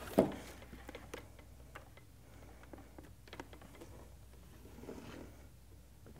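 Illustrated picture cards being changed in a wooden kamishibai theatre: a sharp knock just after the start, then faint sliding of card against wood with scattered small clicks and ticks.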